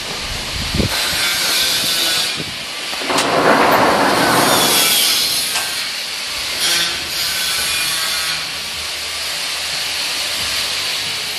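Workshop noise in a panel-beating shed: a rushing hiss that swells and fades, loudest about three to five seconds in.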